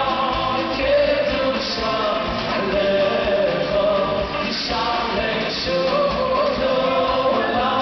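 Live concert music: two men singing into handheld microphones, backed by a live band.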